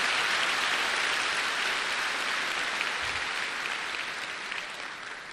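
Audience applauding, a steady wash of clapping that slowly dies away.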